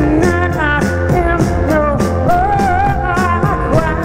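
Live amplified pop music: a woman singing into a microphone over a steady beat.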